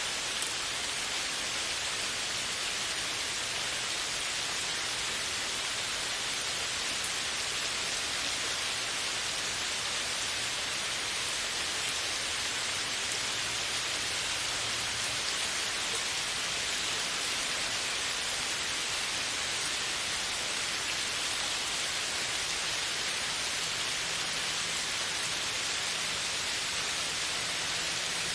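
Steady heavy rain falling on forest foliage, a constant even hiss with no separate drops standing out.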